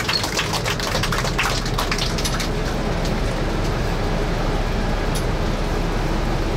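Passengers applauding with a quick patter of claps that dies away after about two and a half seconds, leaving the steady running noise of the amphibious tour bus with a low hum under it.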